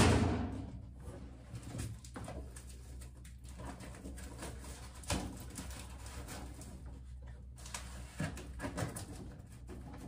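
Handling noise from someone working in the cramped gap behind a clothes dryer, connecting its vent duct. There is rustling throughout, a loud thump right at the start, and a few sharper knocks later on.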